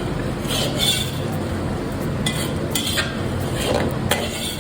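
Metal ladle stirring in a large cooking pot, with several sharp clinks and scrapes against the metal over a steady low rumble.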